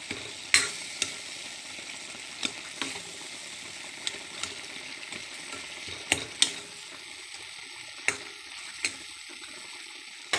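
Small tomatoes frying in a metal wok with a steady sizzle, while a metal ladle stirs and mashes them, clinking and scraping against the pan at irregular moments. The tomatoes are softening and releasing their water as they break down.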